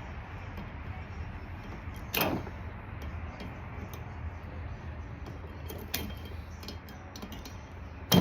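Tools and small metal engine parts clicking and knocking during hand work on a scooter engine's cylinder head, with a louder knock about two seconds in and a sharp clack near the end, over a steady low hum.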